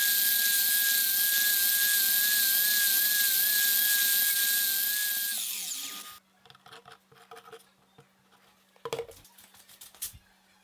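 Electric miter saw running at speed with a steady high whine, then winding down with a falling whine after about five seconds. It cuts off sharply, leaving faint taps and two soft knocks near the end.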